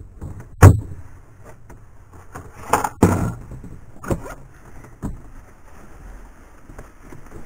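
A louvered wooden cabinet door shut with a sharp knock, followed by a few softer knocks and bumps as things are handled.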